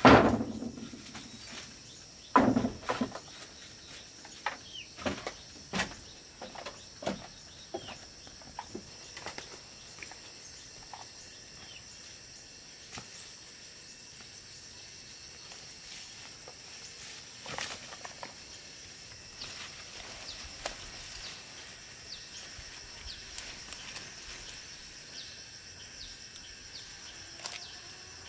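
A heavy wooden thump as a low wooden bench is set down on plank porch boards, then knocks and footsteps on the wooden floor over the next few seconds. After that, steady insect buzzing with occasional rustles and snaps of plants.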